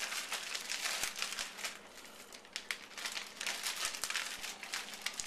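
Plastic freezer bag crinkling and rustling in a rapid, irregular run of crackles as hands stuff pieces of raw pork into it.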